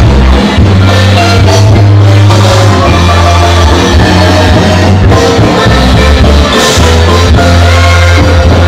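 Loud dance music with a heavy bass line and drums.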